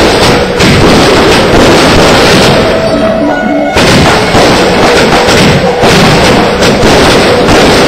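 Large display fireworks bursting in the air in quick succession, with repeated sharp bangs, over loud music playing at the same time.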